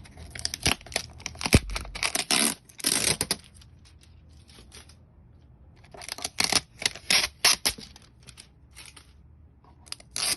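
Transport tape being peeled off a self-cleaning litter box, in two spells of crackling rips with a shorter one near the end. A single dull knock about a second and a half in.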